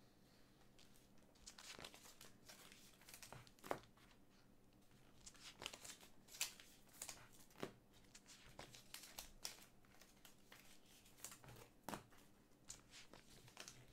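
Faint crinkling and light clicks of trading cards and their plastic sleeves and holders being handled and set down, in scattered short strokes.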